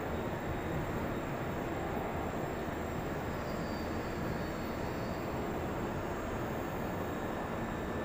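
Steady mechanical rumble of the VLT Unit Telescope 3 enclosure's drives as the dome opens, an even, unbroken noise heaviest in the bass.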